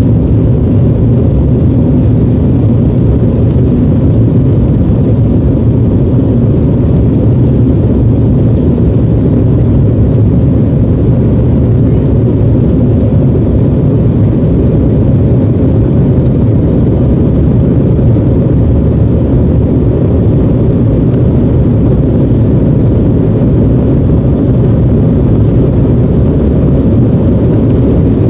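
Steady low rumble of an airliner's jet engines at low power, heard from inside the passenger cabin as the plane taxis.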